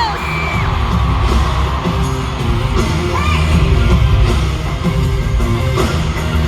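Live K-pop concert music heard from the audience in a large hall: a heavy bass-driven backing track with singing, and fans yelling over it.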